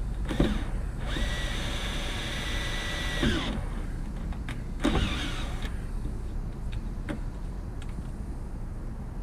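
Power drill running as it bores holes: one steady whine for about two seconds that spins up and winds down, with shorter trigger pulls before and after it, over a steady low rumble.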